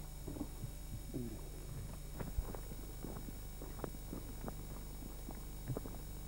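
Irregular footsteps of several people walking on a dirt track, uneven knocks and scuffs over a steady low hum.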